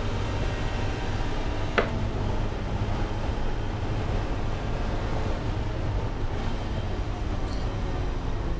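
In-cabin sound of a Mazda MX-5 race car at racing speed: a steady engine and road drone, with one sharp click about two seconds in.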